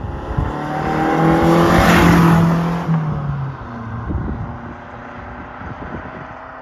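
A car driving past: its engine note swells to its loudest about two seconds in, drops in pitch around three seconds, then fades away.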